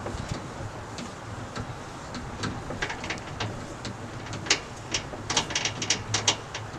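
Spare-tire cable winch under a 2017 Dodge Ram pickup being cranked with the jack handle to pay out the cable: irregular clicks and knocks, with a quicker run of clicks near the end.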